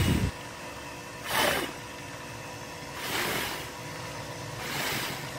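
A person blowing short puffs of breath onto the small propeller of a wind-powered LED light bar to spin it and light the LEDs. There are four puffs, about every one and a half to two seconds, and the first also buffets the microphone with a low rumble.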